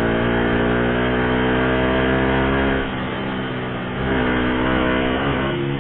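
Small motorcycle engine running at steady revs while riding, easing off about three seconds in and pulling again a second later.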